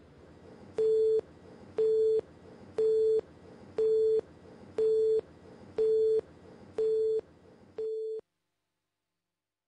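Countdown leader beeps: eight short, steady beeps at one pitch, one each second, over a faint hiss. The last beep is quieter.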